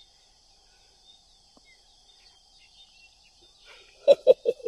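Faint, steady high-pitched drone of insects, typical of crickets or cicadas. About four seconds in, a rapid run of short, repeated pitched sounds begins, some six a second, louder than the drone.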